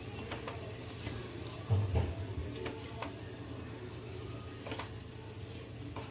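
Wooden spatula stirring raw rice, dal and chopped vegetables in a metal kadai: soft scraping and rustling with light knocks against the pan, a little louder about two seconds in.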